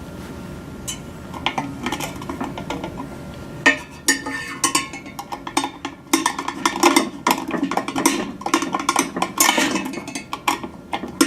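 Phillips screwdriver driving screws and washers into the radio hood: irregular metal-on-metal clicking and clattering. It starts sparse about a second in and turns dense and busy from near the middle on.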